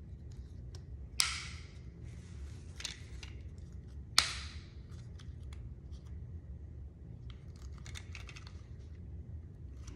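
Hard plastic clicking and rattling as parts of an Arctic Cat ATV fuel pump assembly are pressed together by hand, trying to snap a component into place that won't seat. There are two sharp clicks, about a second in and about four seconds in, with lighter clicks and rustling around eight seconds.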